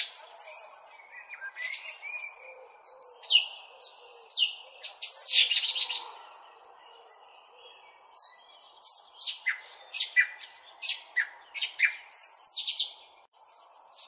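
Small birds chirping: a busy run of short, high chirps and twitters in clusters, with brief pauses, over a faint steady background noise.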